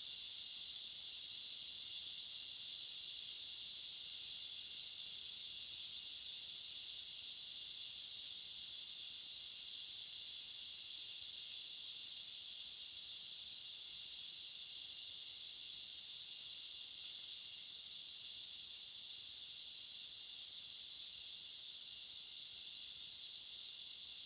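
Steam hissing steadily from an aluminium pressure cooker's valve, slowly getting a little quieter.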